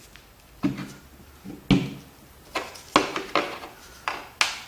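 Small metal parts of a disassembled hydraulic brake shuttle valve being handled and set down on a workbench: a series of separate sharp clinks and knocks, the loudest a little under two seconds in and at about three seconds.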